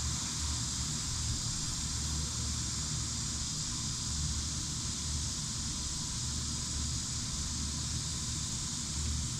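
Steady outdoor background: an even high-pitched hiss with an unsteady low rumble underneath, like wind on the microphone.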